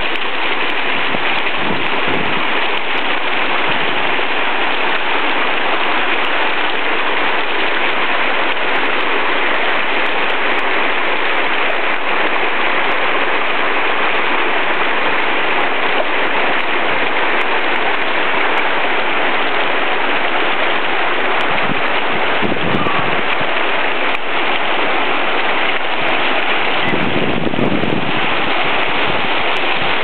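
Mountain stream rushing over boulders: a loud, steady hiss of white water, with a couple of brief low rumbles near the end.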